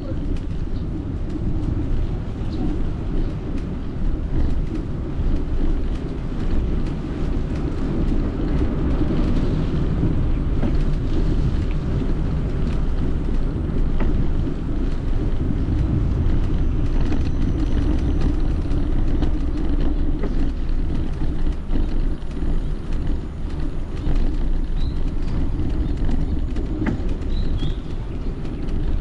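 Wind buffeting an action camera's microphone while riding a bicycle, mixed with tyres rolling on asphalt: a steady low rumble. A couple of faint bird chirps come in near the end.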